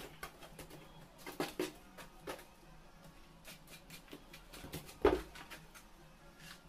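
Scattered knocks and scrapes as a whole concrete block is handled and laid on fresh mortar, with one loud thud about five seconds in as the block is set down.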